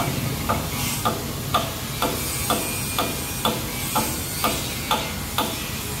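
Excavator's diesel engine running with a steady low rumble, under a regular series of sharp ticks, about two a second, that stop shortly before the end.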